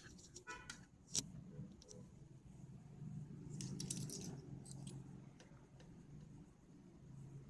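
Metal coins clinking together as they are handled by hand, in a short cluster about halfway through, after a few light clicks near the start. A low steady hum runs underneath.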